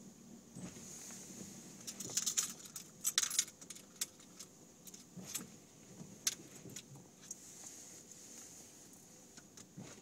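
Small metal objects jingling and clicking as they are handled, in a dense burst about two to three and a half seconds in, then a few scattered clicks.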